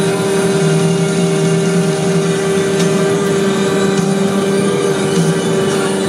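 Engine of a vacuum paver-laying machine running steadily, with a constant held tone over its hum.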